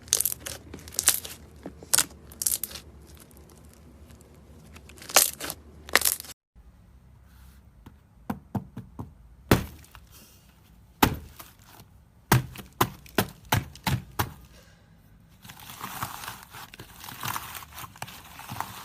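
Slime being pressed and squeezed by hand, giving sharp, separate crackles and pops. After a cut about six seconds in, the pops come more sparsely, and near the end they turn into a dense, continuous crackling.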